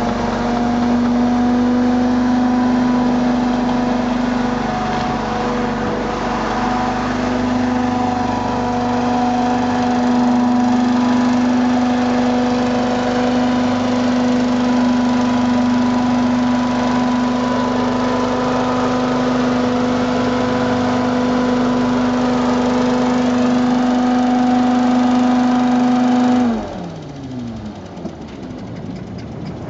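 Homebuilt DeLorean hovercraft's engine and ducted fan running steadily with a loud, even hum. Near the end the engine is shut off and the pitch falls as the fan spins down.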